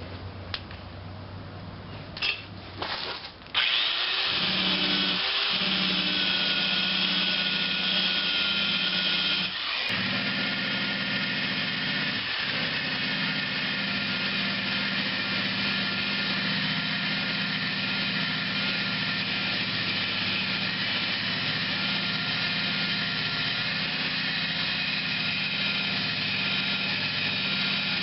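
Electric drill spinning a paint-stripping wheel, grinding paint off a car body panel. It starts about three and a half seconds in after a few clicks and runs steadily, with a brief dip near ten seconds.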